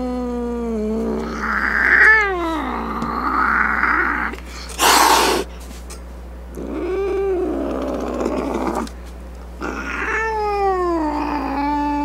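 Grumpy cat yowling: long drawn-out wails that hold a pitch and then slide up and down, with a short loud hiss about five seconds in.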